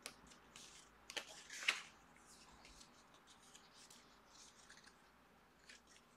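Pages of a photobook being turned by hand: faint paper rustles and flicks, the loudest a pair of page flicks a little over a second in.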